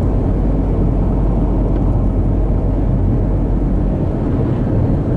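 Steady low rumble of a car driving at road speed, with engine and tyre noise heard from inside the cabin.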